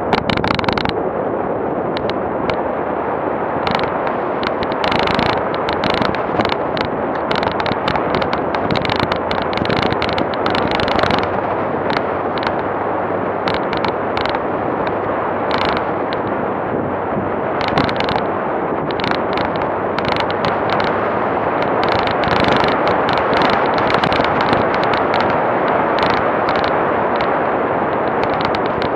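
An off-road vehicle driving on a rough dirt road, heard from a camera mounted on its bonnet. There is a steady noise of engine, tyres and wind, with dense, constant crackling and knocking as the vehicle jolts over the bumps.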